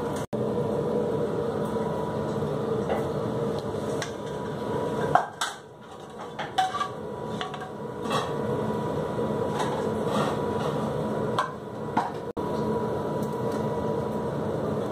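Scattered knocks and clatter of utensils and a plate on a stainless-steel kitchen counter, the sharpest about five seconds in, over a steady mechanical hum of kitchen equipment.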